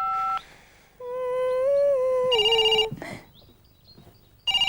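A telephone ringing in two short trilling bursts about two seconds apart: a call coming through at the other end of the line. Before the first ring, a voice hums a held note, and a keypad tone ends just at the start.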